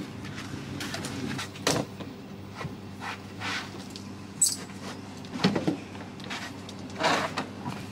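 Metal folding camping table being collapsed: several separate clanks and rattles as its legs are folded, over a steady low hum.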